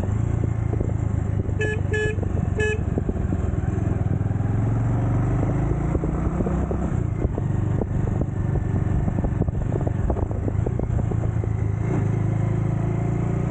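Motorcycle engine running steadily under way, with wind and road noise. A horn gives three short toots about two seconds in.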